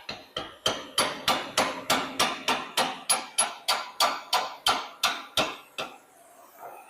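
Hand hammer pounding a hot steel rivet: a steady run of about twenty sharp metal-on-metal blows, roughly three a second, with a short ring after each, stopping near the end. This is hot-riveting the steering sector and spindle of a 1926 John Deere Model D's front end, heading the rivet flat.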